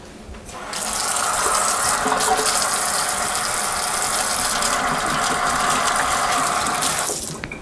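Kitchen tap running into a sink while hands are washed under it. The water starts just under a second in, runs steadily, and is shut off near the end.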